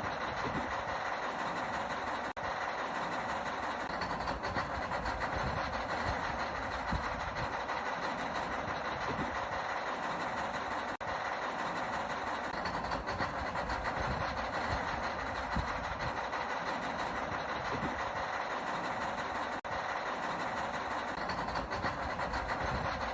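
Small electric motors and gearboxes of a radio-controlled toy excavator whirring steadily as it loads sand into a toy dump truck, with three brief drop-outs.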